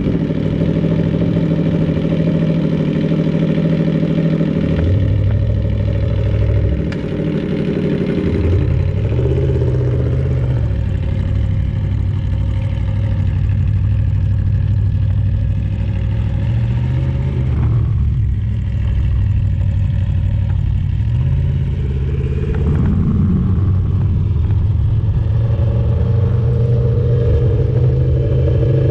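Aprilia Tuono V4's V4 engine idling steadily, then running at low revs as the bike rides off slowly, with a few brief small rises in revs.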